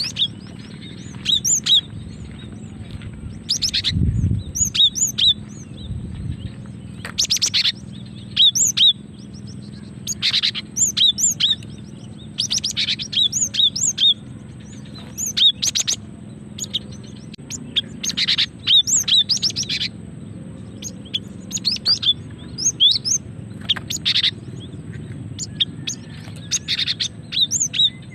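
Female cinereous tit (gelatik batu) giving short, high chirping calls in quick clusters of a few notes, repeated every second or so: a female's call, used to draw males and set caged birds singing. A dull low thump about four seconds in.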